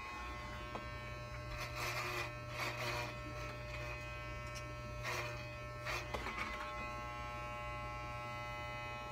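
Electric hair clippers buzzing steadily, with two stretches of rasping as the blades cut into synthetic wig hair, about two seconds in and again around five seconds in.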